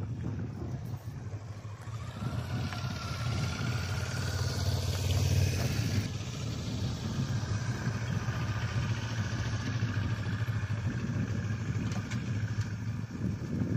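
Motorcycle engine running with a steady low hum, swelling louder between about two and six seconds in before settling back to an even run.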